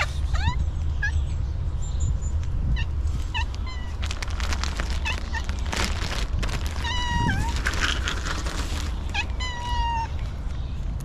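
A hungry stray cat meowing again and again: short rising meows at first, then two longer drawn-out meows in the second half. Rustling noise runs under the calls for a few seconds in the middle.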